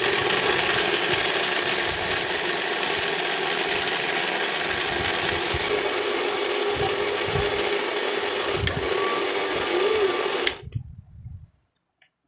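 Electric mixer grinder running steadily as it blends mango pulp and sugar into a thick purée. It switches off about ten and a half seconds in and briefly winds down.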